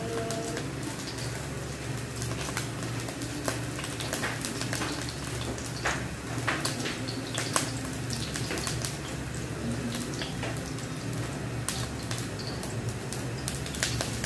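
A little oil and water heating in a wok over a gas burner, crackling and spitting with irregular sharp pops over a steady low hiss and hum; a few louder pops come near the middle.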